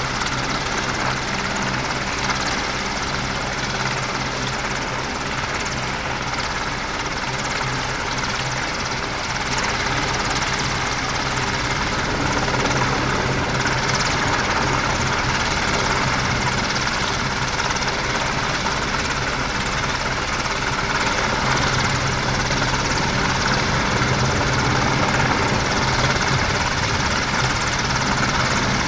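AgustaWestland AW101 helicopter hovering, its rotors and turbine engines running in a steady, dense drone with a low hum, growing slightly louder about halfway through.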